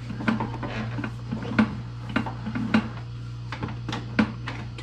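Sewer inspection camera's push rod being fed down the drain pipe, knocking and clicking irregularly about twice a second, over a steady low hum.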